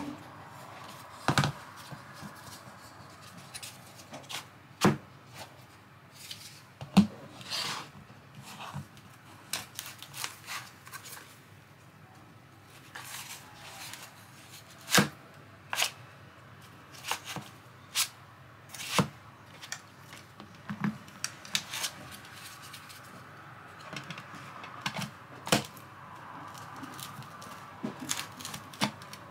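Hard plastic battery packs and a tool-battery charger being handled and set down into a foam holder on a board: irregular clicks and knocks, with rubbing and scraping between them.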